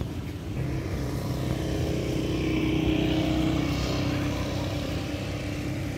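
A motor scooter's engine passing by, growing louder to a peak about halfway through and then fading.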